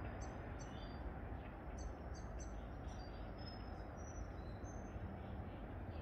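A small songbird chirping: a quick string of short, high, sharply falling notes in twos and threes, then a few thin, slightly longer whistled notes, over a steady low rumble.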